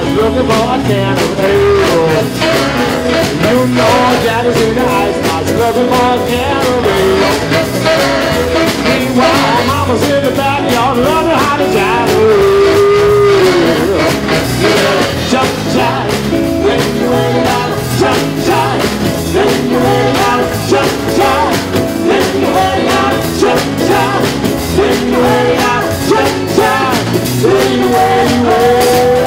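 Live swing band playing an up-tempo jump tune: a saxophone section, keyboard and drum kit, with singers at the microphones.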